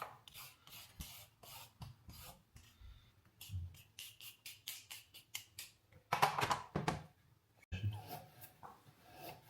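A carrot being worked with a blade on a cutting board: repeated short scraping strokes, irregular at about two or three a second, with a louder stretch about six seconds in.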